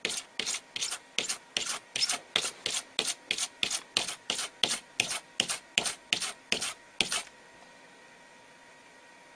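Rhythmic back-and-forth rubbing strokes across a surface, about three a second, stopping about seven seconds in and leaving a faint steady hiss.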